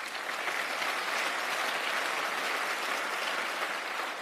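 Audience applause: many people clapping together in a dense, steady patter that swells up at the start.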